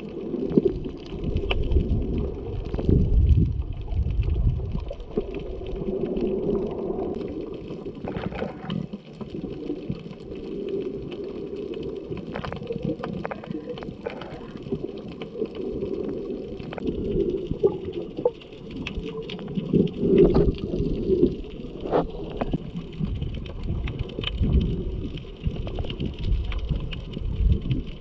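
Muffled underwater water noise from a snorkeling camera below the surface, mostly low and surging up and down, with a few faint scattered clicks.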